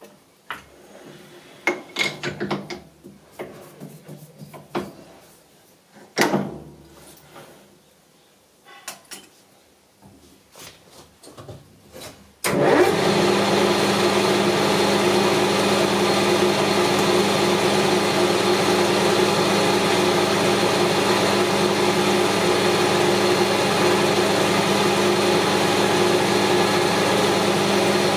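Scattered clicks and knocks of tools and workpiece being handled, then about twelve seconds in a metal lathe switches on abruptly and runs steadily with an even mechanical hum, spinning the steel blank for centre-drilling.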